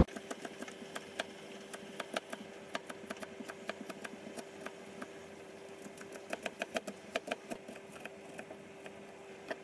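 Food in a pot with a little water added, popping and crackling irregularly over a steady hum as it heats; the pops come faster for a moment about six seconds in.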